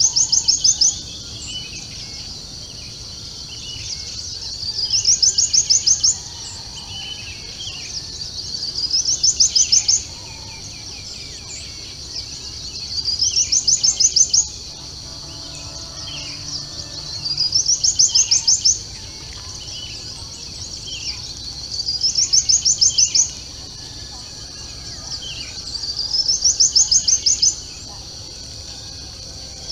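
Dawn wildlife ambience: a high, rapidly pulsed call repeats about every four and a half seconds, each one swelling over a second or so and stopping abruptly. Scattered bird chirps sound in between.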